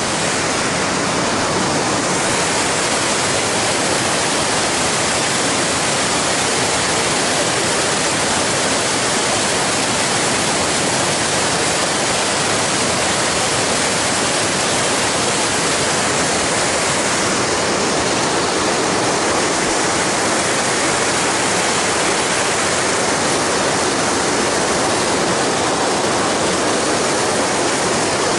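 Mountain river rushing over rocks and spilling into a deep pothole pool in a rocky gorge: a loud, steady rush of whitewater.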